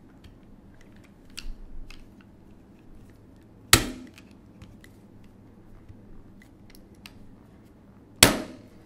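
A few light metal clicks, then two sharp metallic snaps about four and a half seconds apart, from a Volquartsen Scorpion .22 LR pistol as its mainspring is worked up through the frame during reassembly.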